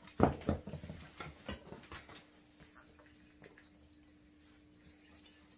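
Light knocks and clicks of Shop-vac parts being handled, bunched in the first two seconds, then a faint steady hum.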